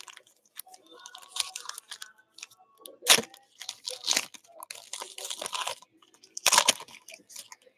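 A foil retail pack of 2019-20 Prizm basketball cards being torn open and crinkled by hand: irregular crackling rips, the loudest about three seconds in and again about six and a half seconds in.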